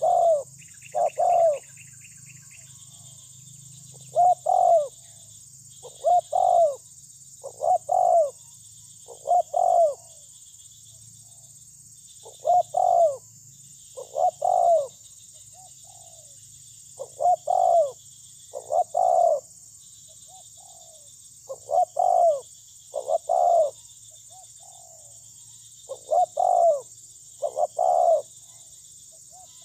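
Spotted dove (terkukur) cooing: loud low coos in groups of two or three, each note rising and falling, repeated about every one and a half to two seconds. This is the cooing song that the lure call is meant to draw from the bird.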